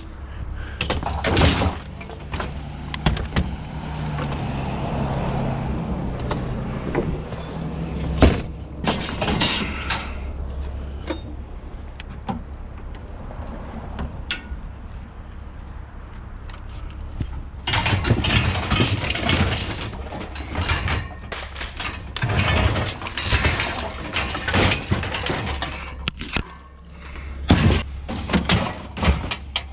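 Scrap being moved and rearranged by hand: scattered knocks and clunks, with three longer stretches of scraping and rattling in the second half.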